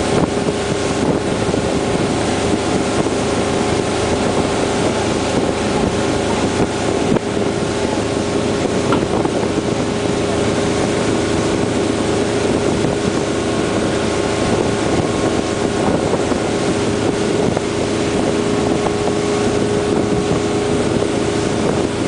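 Motorboat engine running steadily under way while towing a parasail, a constant drone, with wind buffeting the microphone.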